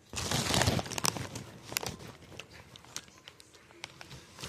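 SkinnyPop popcorn bag crinkling for about a second, followed by scattered small crackles and rustles.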